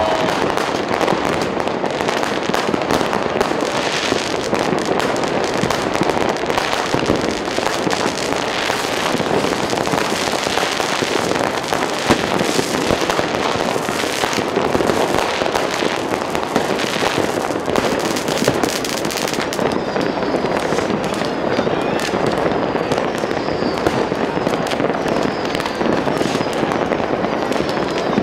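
Dense, continuous New Year's Eve fireworks and firecrackers: many bangs and crackles going off at once, one over another, without a pause. In the last third, short falling whistles are heard over the banging.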